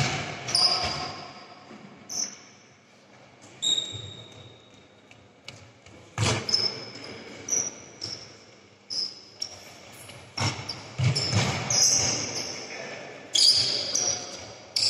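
Basketball game play in a large gym: a ball bouncing with scattered sharp thuds and short high sneaker squeaks on the court floor, echoing in the hall.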